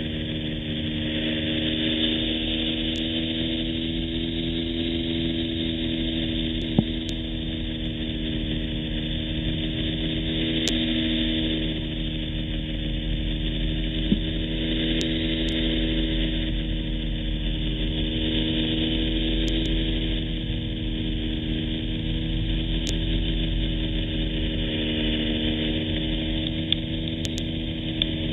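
A small plane's engine droning steadily in flight, heard inside the cabin: a hum of several pitched tones that waver slightly, over a steady rush of air noise. A few brief clicks stand out, about 7, 14 and 27 seconds in.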